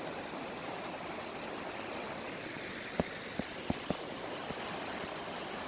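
Rain-swollen stream rushing steadily over small waterfalls. A few short clicks come close together about three seconds in.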